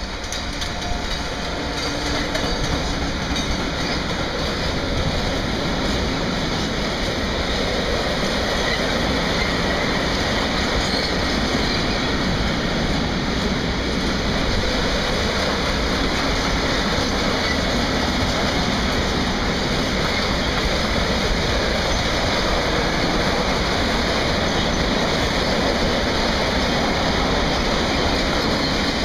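Long freight train of covered hood wagons rolling past, a steady noise of wheels on rail that swells over the first couple of seconds and then holds.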